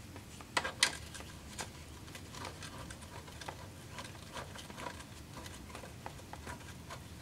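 Faint scattered clicks and light taps from the last bolt being worked out of a transmission oil pan by hand, two sharper clicks about half a second to a second in.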